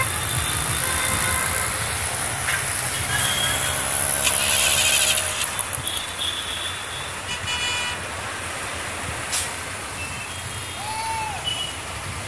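Heavy diesel machinery running steadily with a low rumble while a mobile crane handles a transit mixer drum. About four seconds in there is a loud hiss lasting about a second, followed by a few light clicks.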